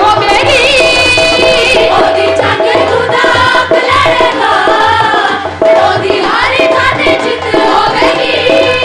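Amplified live worship song: women singing into microphones over a steady hand-drum beat.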